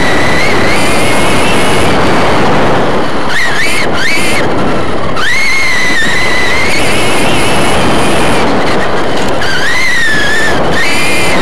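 Onboard sound of an RC short course truck racing on dirt. The electric motor and drivetrain whine high, rising and falling with the throttle and cutting out briefly a few times, over a constant loud rush of tyres and chassis noise.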